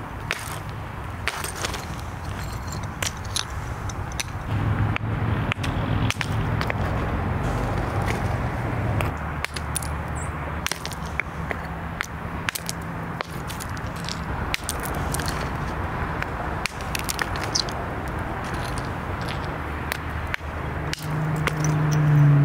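A hammerstone striking chert cobbles to knock off flakes: irregular sharp clacks and clinks of stone on stone. A low steady hum comes and goes underneath, loudest near the end.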